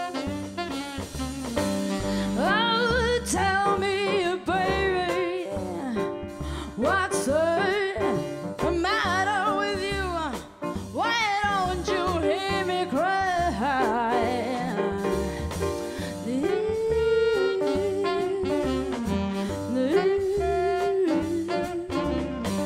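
A jazz-blues band of voice, saxophone, piano, upright bass and drums playing. A female singer sings wordless sliding, wavering vocal lines over the band, and from about sixteen seconds in, held wavering notes take over the melody.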